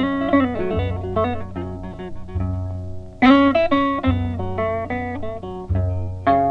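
Blues guitar playing an instrumental break: plucked single notes, some sliding in pitch, over a low bass note that repeats about every one and a half seconds.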